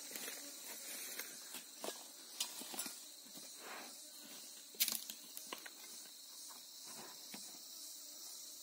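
Scattered rustles and light clicks of footsteps on dry leaves and sawdust, the sharpest about five seconds in, over a steady high hiss. The chainsaw is not running.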